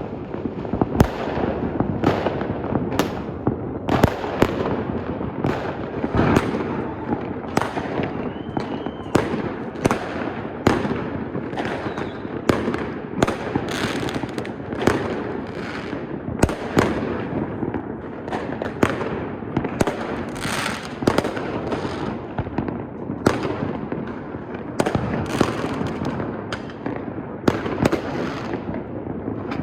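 Fireworks display going off in a continuous barrage: sharp bangs and crackles, a few a second, over a constant crackling din.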